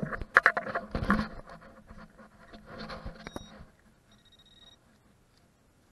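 Shovel digging in turf and soil: several sharp cuts and scrapes in the first second or so, then softer scraping of loose dirt around the middle, fading to quiet.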